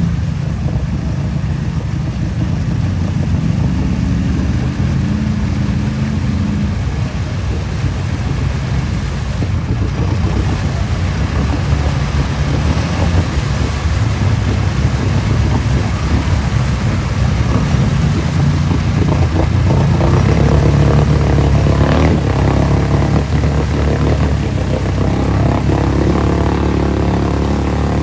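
Honda off-road vehicle's engine running hard and revving, its pitch rising and falling, a little louder about two-thirds of the way through.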